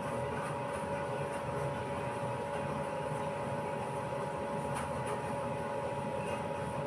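Steady background hum of a running machine, with a constant faint whine that neither rises nor falls.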